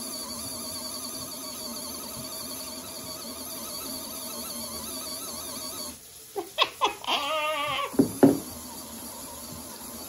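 Mini portable washing machine running with a steady motor hum while water is poured into its tub; about six seconds in the hum stops. Then come a few short, loud sounds that rise and fall in pitch.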